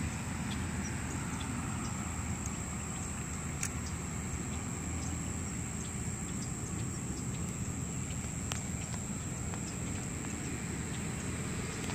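Steady outdoor background: a low rumble, with a thin high steady whine and a few faint clicks.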